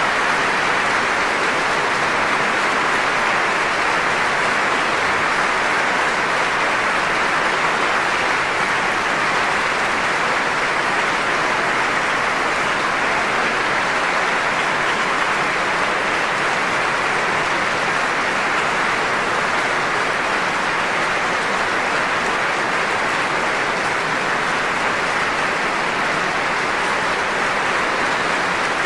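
Large concert-hall audience applauding, a dense, steady clapping at an even level.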